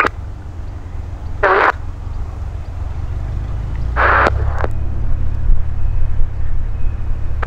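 Low steady drone of a light propeller aircraft's engine, growing louder about halfway through, broken twice by short hissing bursts of static from an airband radio.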